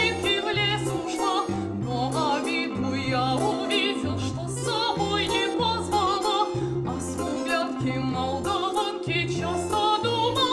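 A woman singing a slow song in a classical style with wide vibrato, over an accompaniment with a regular, repeating bass line.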